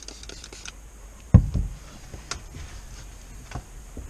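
A window being cleaned by hand with a cloth and spray bottle: a hiss that cuts off early, then a loud knock about a second and a half in and a few lighter taps and clicks.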